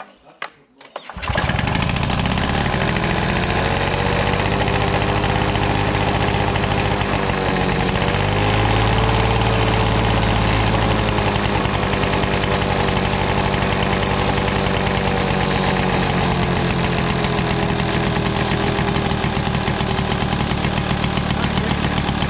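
Victa Power Torque two-stroke lawnmower engine, cold, catching on the second pull of its new starter rope about a second in, then running steadily with a slight dip and recovery in speed partway through.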